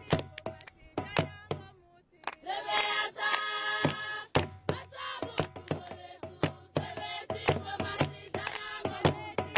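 A group of voices singing over a sharp, regular percussive beat. About two seconds in the beat stops briefly and the voices hold one long chord, then the steady beat returns.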